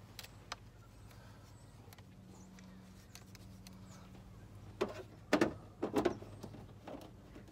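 Handling noise of a plastic trim piece being fitted up under a truck's fender: a few faint clicks, then four short, dull knocks as the part bumps against the plastic wheel-well liner, the second one loudest.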